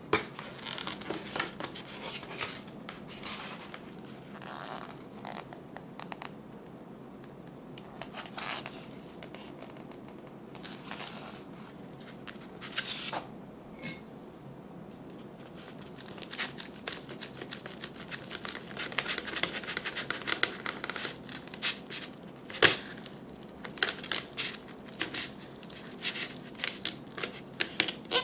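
Crinkly plastic food packaging handled up close: a clear plastic sushi tray and its film wrapper crackling, tearing and scratching as a sushi roll is unwrapped, with a sharp knock about two-thirds of the way through. Near the end the crackling grows dense as a knife cuts through the crisp nori-wrapped roll.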